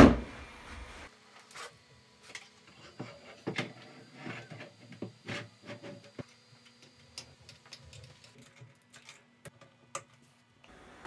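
Hands assembling a 3D printer: a thump at the start as a plastic-wrapped filament spool is set on the bench, then scattered clicks, knocks and plastic rustles as the frame parts and cable connectors are handled and fitted.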